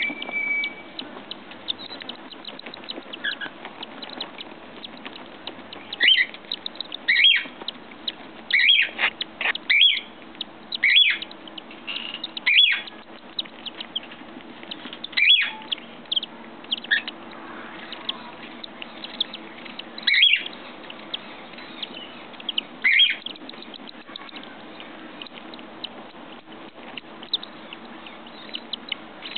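Newly hatched cockatiel chicks giving short, raspy begging calls in irregular bunches while a parent feeds them, over a steady low hum.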